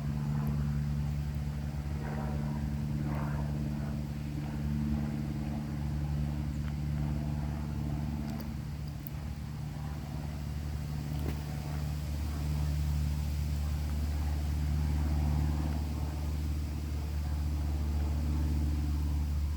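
Steady low mechanical drone with several fixed-pitch hum tones that hardly change throughout.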